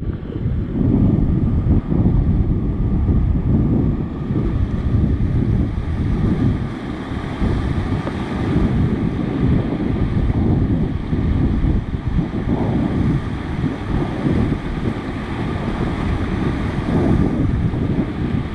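Wind buffeting the microphone in heavy, uneven gusts over the steady rush of white-water rapids around an inflatable raft.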